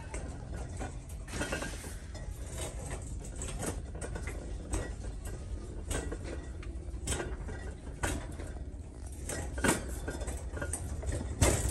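Irregular light clicks, taps and rustles of handling noise as a phone camera and a carried bag move with a walking shopper, over a steady low hum of store background.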